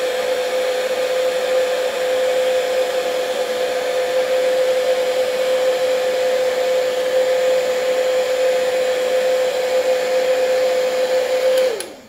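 Heat gun running steadily, its fan blowing with a steady whine while shrinking heat-shrink tubing over battery leads. It is switched off just before the end, the whine dropping in pitch as the fan winds down.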